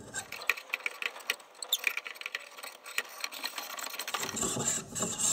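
An AR-15 keymod free-float handguard being screwed by hand onto the barrel nut: a run of quick, light metal clicks and rattles, with a brief scrape falling in pitch about two seconds in.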